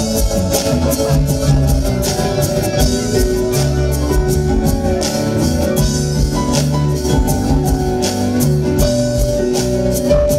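Band music playing without vocals: a steady drum beat over a bass line and held melody notes.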